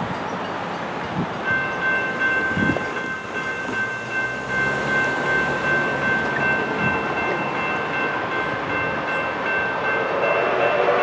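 Railroad grade-crossing bell starts ringing about a second and a half in as the crossing signals activate, with a low rumble of an approaching train underneath. Near the end, a train's multi-note chime begins to sound.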